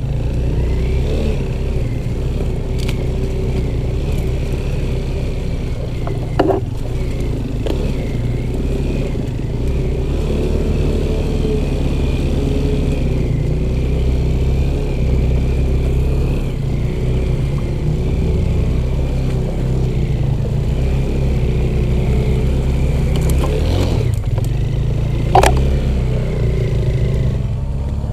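Off-road motorcycle engine running steadily while riding, with two sharp knocks, about six seconds in and near the end.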